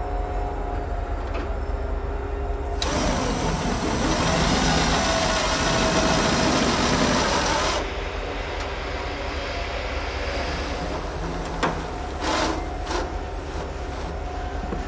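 Cordless drill driving a half-inch #8 stainless steel sheet-metal screw through an aluminum patch into a truck's wheel-well sheet metal. It runs for about five seconds, starting a few seconds in, with its pitch wavering, and a few short knocks follow near the end.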